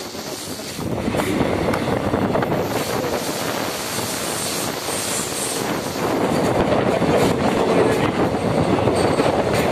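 Passenger train running along the track, heard from the open side of a moving carriage: a steady rumble of wheels on rail with occasional clacks. It grows louder about a second in and again about six seconds in.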